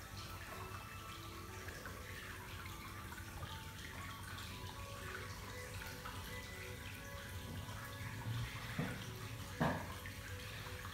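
Steady hiss of running water in a hot-spring bath, with two short knocks near the end.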